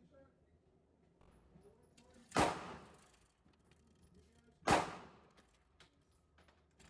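Two pistol shots from a SIG Sauer P226, about two seconds apart, each followed by a short echoing tail.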